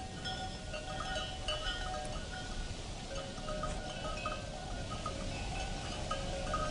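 Many small metal bells ringing and jangling irregularly, several pitches overlapping: the bells of an approaching caravan.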